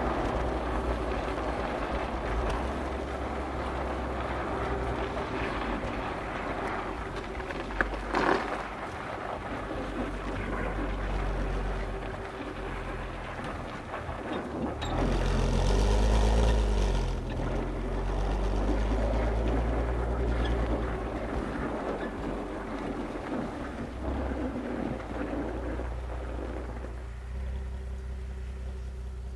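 Stock exhaust of a Volkswagen Golf R32 Mk5's 3.2-litre VR6, heard from the rear bumper under way, with wind noise. About halfway through the engine gets louder, its note rising and then falling, and near the end it settles into a steadier, quieter drone. There is a single sharp knock early on.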